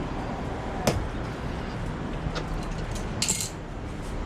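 Handling noises over a steady low background rumble: a sharp click about a second in and a short rustle a little after three seconds.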